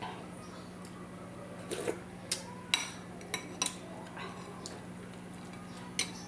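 Spoon and fork clinking against a plate while eating, a series of sharp clicks in the first half and one more near the end, over a steady low hum.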